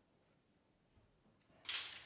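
Near silence, then about one and a half seconds in a sudden short clatter of metal bar clamps being handled, fading away.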